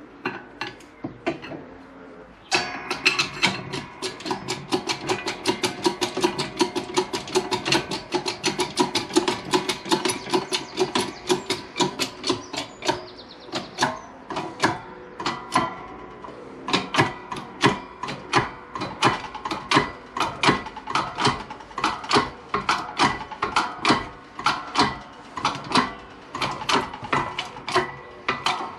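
Hand-pumped 6-tonne hydraulic shop press being worked to press a new bearing into a motorcycle sprocket carrier. It makes a long run of sharp metallic clicks with ringing, coming quickly at first, about four a second, then slowing to evenly spaced pairs.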